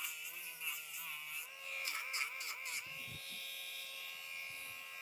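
Rotary nail grinder with a sanding band buzzing against a dog's toenail, its pitch dipping and recovering again and again as it is pressed onto the nail and eased off.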